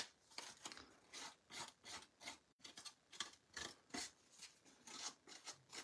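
Faint repeated rasping as the pivot joint of a pair of scissors is scraped along the edge of cardstock to distress and fray it, a few strokes a second.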